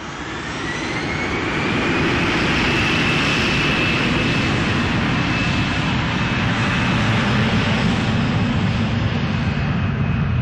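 Jet airliner's engines spooling up: a thin whine rises in pitch over a growing roar for about two seconds, then both hold steady and loud.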